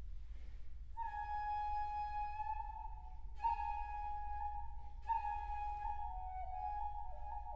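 Solo shakuhachi bamboo flute sounding a long, breathy high note that starts about a second in and is re-attacked twice, each attack carrying a rush of breath noise, the pitch bending down near the end.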